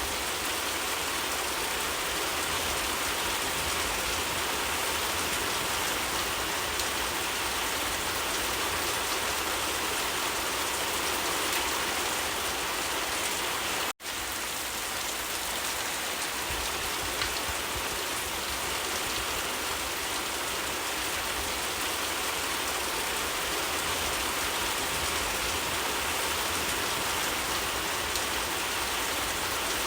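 Steady rain falling on leaves, an even patter with no let-up, broken once about halfway by a split-second gap in the sound.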